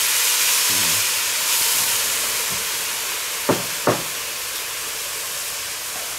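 Water poured into a very hot cast-iron Dutch oven, hissing and sizzling loudly as it flashes to steam on the searing pan, deglazing the browned vegetables and tomato paste; the hiss slowly dies down. Two short knocks come about three and a half seconds in.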